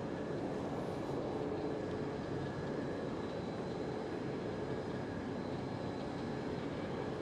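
Steady city street din: a low, even traffic rumble with a few faint steady hums over it and no distinct events.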